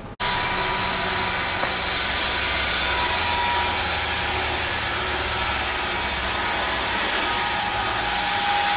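Sawmill machinery running steadily: an even noise with a faint high whine and a low hum, starting abruptly just after the start.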